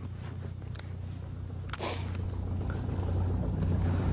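Boat motor running with a steady low hum, getting slightly louder in the second half, with a short burst of noise about two seconds in.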